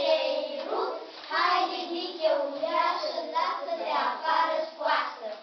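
A child singing a tune with held notes; the singing stops near the end.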